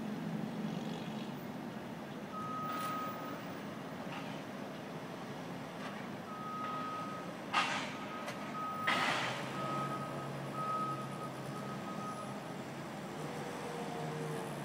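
Forklift reversing alarm beeping at one steady high pitch, over the steady low rumble of a work truck's machinery. Two short, loud noisy bursts come about halfway through.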